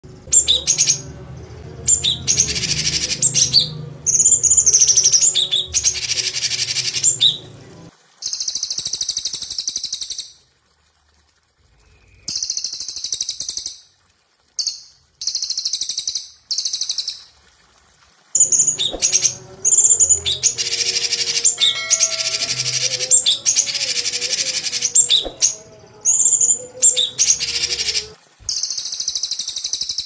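Songbirds calling: a cililin (crested jay) and a cucak cungkok leafbird. The calls come as repeated bursts of high, rapid chattering trills, each a second or two long, with short pauses between them.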